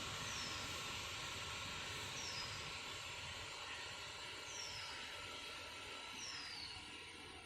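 A bird repeating a short, high falling whistle about every two seconds, over a steady background hiss.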